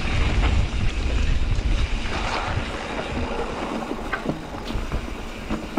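Wind buffeting the microphone while riding a mountain bike on a dirt trail, a low rumble that is heaviest in the first two seconds and eases after, with scattered small clicks and rattles from the bike over the ground.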